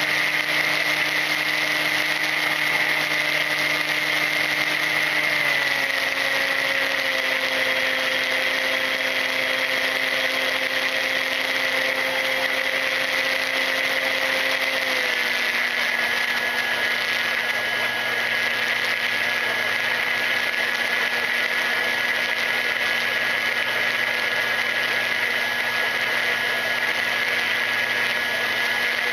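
Brushless electric motor and propeller of a Volantex Ranger EX RC plane running steadily in flight, heard from the onboard camera with wind rush. The pitch drops in two steps, about five seconds in and again about halfway through, as the throttle is eased back.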